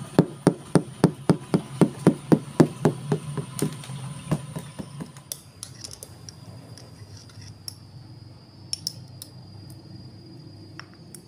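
A hand tapping on a cloth-covered object: a quick, even run of knocks, about four a second, that fades out after about five seconds. After that come a few light clinks as glass bottles are handled.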